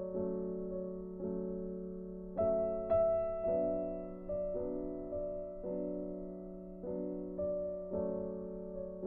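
Background piano music: slow, gentle notes struck about once a second, each fading away.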